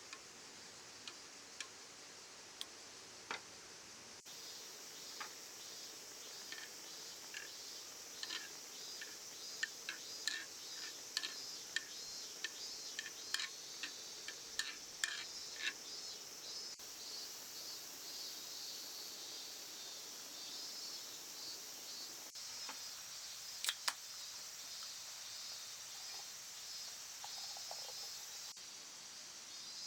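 Insects chirping steadily in a high band, with scattered sharp clicks and ticks over it, most of them in the middle of the stretch and a pair near the end.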